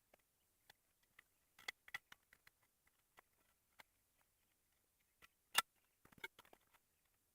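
Near silence broken by faint scattered clicks and light knocks, with one sharper knock about three quarters of the way through.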